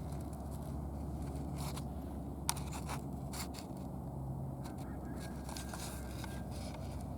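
Downy woodpecker pecking at wood: scattered, irregular taps with one sharper knock about two and a half seconds in, over a steady low rumble.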